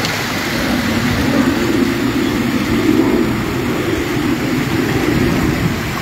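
Steady rush and churn of shallow stream water, with splashing from legs in waders wading through it.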